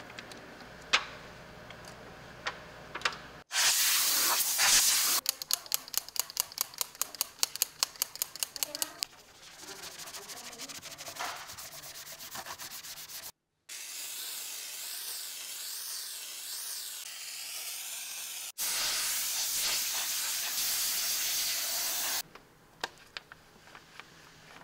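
Engine bay cleaning: a loud spray hiss, a fast run of short hissing strokes, then a brush scrubbing foamy cleaner over the plastic engine cover, and a second long spray hiss. A few light clicks near the end.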